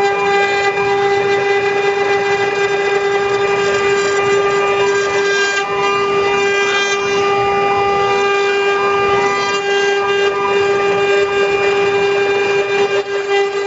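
A 6090 desktop CNC router's spindle running at high speed with a steady high whine, its bit carving into a slab, with a rough cutting noise underneath.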